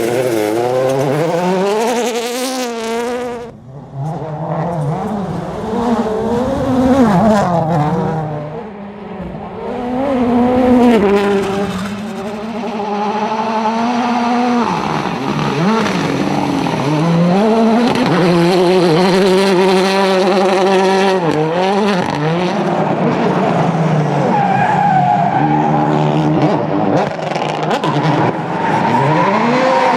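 Rally car's turbocharged four-cylinder engine driven flat out, its pitch climbing through the gears and dropping on each shift and lift, over and over. The tyres skid on the loose stage surface.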